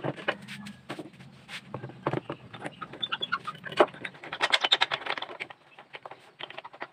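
Light wooden knocks and clicks as the featherboards and fence of a router table are handled and set, with hens clucking close by. The clucking is busiest about four to five seconds in.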